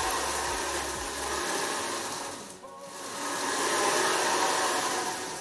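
Stepper motors driving a home-built CNC router gantry along its y-axis gear rack and linear rails, a steady machine whirring. It swells, drops away briefly about two and a half seconds in, then swells again as the gantry keeps travelling.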